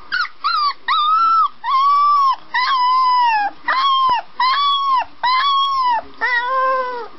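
Young golden retriever puppy howling: a run of about nine short, high-pitched howls, each rising and then falling in pitch.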